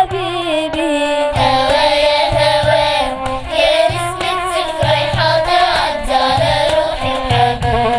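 A group of young girls singing an Arabic song, with their voices wavering and sliding between notes over musical accompaniment with a regular drum beat.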